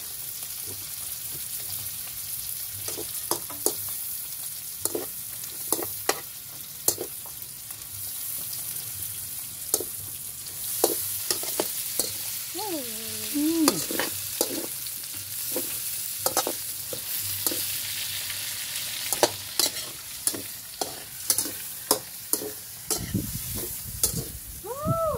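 Onion, garlic and pieces of meat sizzling in oil in a metal pan, with a metal spatula scraping and clacking against the pan in irregular strokes as it is stirred.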